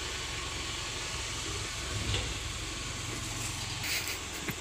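Small diesel dump truck's engine idling steadily with its tipper bed raised after dumping soil. Near the end the engine hum drops away and a shovel scrapes into loose soil a couple of times.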